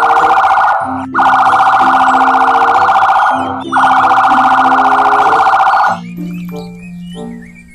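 Police car siren, a rapidly warbling electronic wail sounding in three stretches of about two seconds each and stopping about six seconds in, over light background music.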